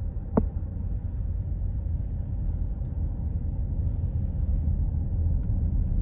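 Road rumble of a car being driven, heard from inside: a steady low rumble, with one sharp click about half a second in.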